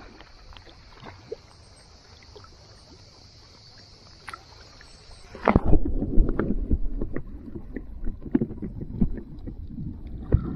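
Water heard from a camera at the surface: a faint hiss with small ticks and lapping. About five and a half seconds in, the camera goes under and the sound turns abruptly to a muffled underwater rumble with crackling and knocks, the high end cut off.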